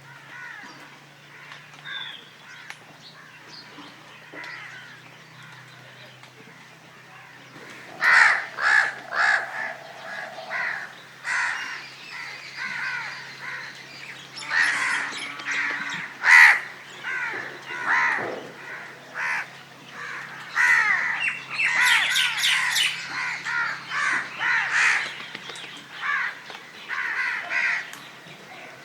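Crows cawing, several birds. A few faint caws come in the first seconds, then from about eight seconds in a dense run of loud caws overlapping one another.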